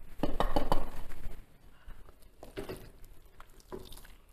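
Chopped parsley tipped off a ceramic plate into a stainless-steel pan of risotto: a quick run of knocks and scrapes of the plate against the pan in the first second and a half, then fainter scattered taps and scrapes.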